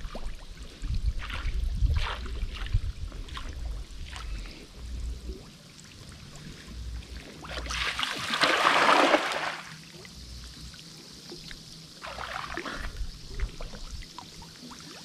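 Water splashing and trickling, with a louder, longer splash about eight seconds in and a shorter one about twelve seconds in. A low rumble and small clicks fill the first few seconds.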